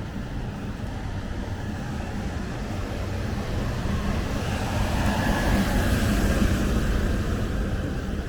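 A motor vehicle passing close by in street traffic, its engine and road noise swelling to a peak about two-thirds of the way through, then easing off.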